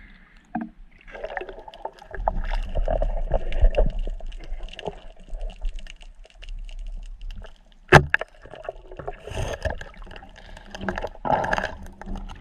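Water gurgling and sloshing around a camera held at and under the sea surface, with scattered small clicks and one sharp knock about eight seconds in.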